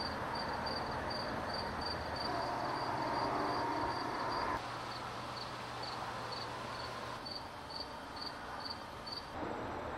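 A cricket chirping steadily, short high chirps at about three a second, over faint outdoor background noise.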